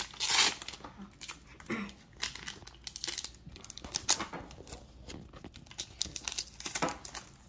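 Foil wrapper of a Pokémon TCG booster pack being torn open and crinkled in the hands: a series of short, sharp rustles and tears, loudest right at the start.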